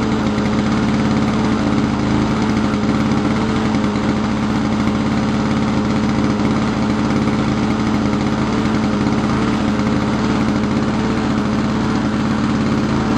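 1987 Lawn-Boy lawn mower engine running loud and steady at an even speed, its carburetor passages cleaned and governor spring replaced so that it no longer runs at low RPM and stalls.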